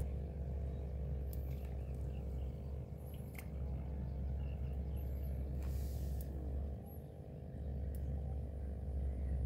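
Steady low outdoor rumble with a constant faint hum underneath. A few small clicks and a short hiss come on top, about six seconds in.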